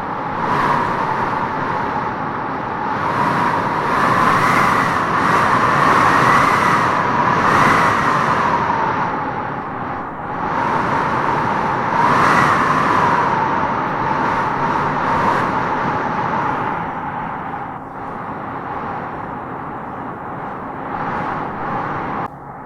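Wind howling in gusts through trees, a whistling howl that rises and falls in pitch as the gusts swell, strongest about four to eight seconds in and again around twelve seconds.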